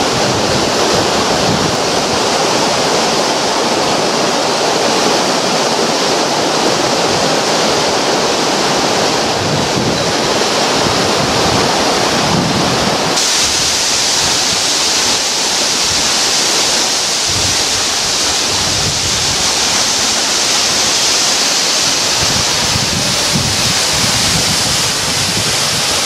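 Waterfall rushing steadily, a loud even noise of falling water. About halfway through it changes to a brighter, hissier rush.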